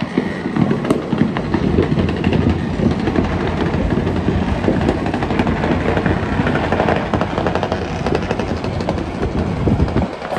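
Fireworks going off in a long, dense run of rapid crackling and popping over a rumble. It starts suddenly and stops abruptly about ten seconds in.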